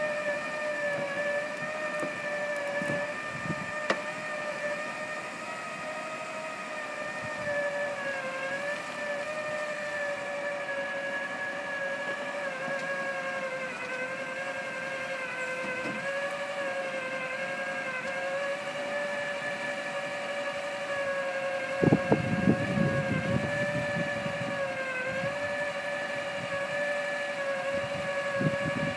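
Motor of a push-button trailer-roof snow removal system whining steadily as it clears snow off the roof, its pitch wavering slightly. A burst of low rumbling comes about three-quarters of the way through and again near the end.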